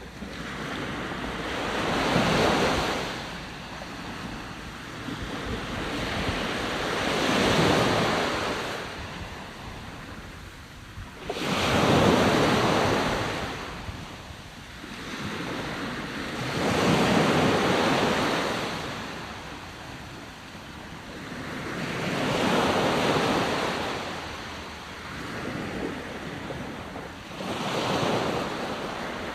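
Ocean waves washing in and drawing back in a slow, even rhythm, six swells about five seconds apart, each rising to a rushing hiss and fading. The swell just before the middle starts more suddenly than the others.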